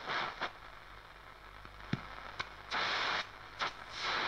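Schaub-Lorenz Goldy 58 tube radio's loudspeaker giving short bursts of hiss and static with a few sharp clicks, as the dial is tuned across the shortwave band between stations.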